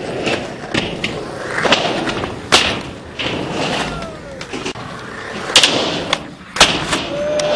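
Skateboards rolling on concrete, with several sharp clacks of boards popping and landing.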